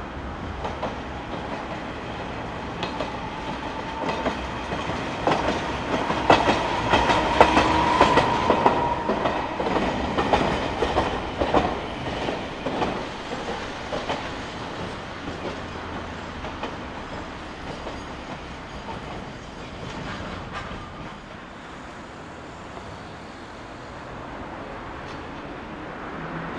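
Tosaden streetcar passing below on street-running track, its wheels clacking over rail joints. It swells and fades, loudest about six to nine seconds in, with a faint whine at its loudest.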